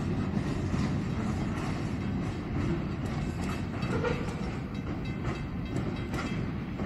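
Freight train of covered hopper cars rolling over a level crossing, a low rumble with scattered clicks and clanks from the wheels. It fades slowly as the last cars pass and draw away.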